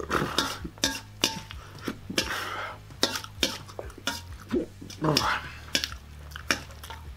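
A metal utensil stirring and scraping through pasta in a large stainless-steel mixing bowl, with repeated sharp clinks against the bowl's sides.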